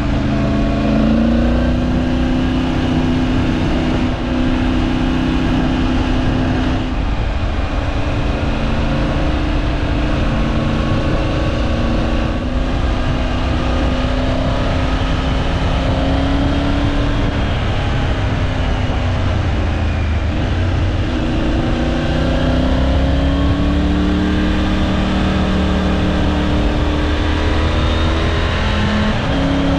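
Triumph Tiger 900 Rally Pro's three-cylinder engine running under way, its revs rising and falling several times as the bike is ridden.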